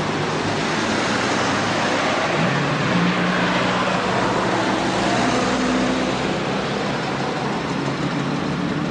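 An engine running steadily under a broad rushing noise, its low hum stepping up in pitch about two and a half seconds in.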